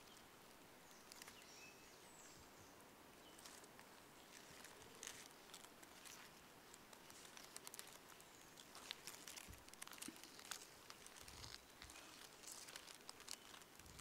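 Faint scattered crackles and ticks of land hermit crabs moving their shells and legs over dry leaf litter, becoming busier in the second half.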